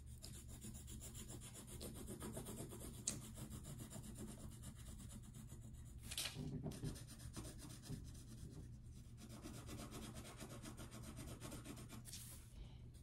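Pencil shading on paper: a faint, continuous scratching rub of pencil strokes as the graphite colours in an area, a little louder about six seconds in.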